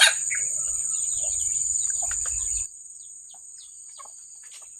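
A steady high-pitched drone of insects, with short bird chirps scattered through it. A low rumble on the microphone stops abruptly just past halfway, leaving the insects and birds quieter.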